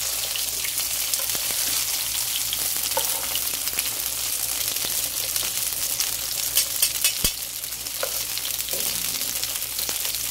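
Bread roll soaked in red chile sauce frying in a pan of hot oil, a steady sizzle as it browns, with a few sharp clicks about two thirds of the way in.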